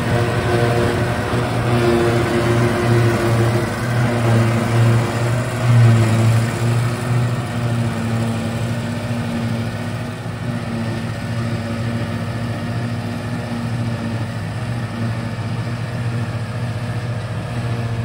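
John Deere 6710 self-propelled forage harvester running steadily under load, picking up a grass swath and chopping and blowing silage into a trailer alongside, with a low throbbing engine note. It grows a little fainter in the second half as it moves away.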